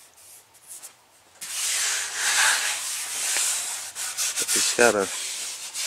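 A bare hand rubbing across the primed surface of a fiberglass truck fender flare, feeling for rough spots. The steady rubbing starts about a second and a half in.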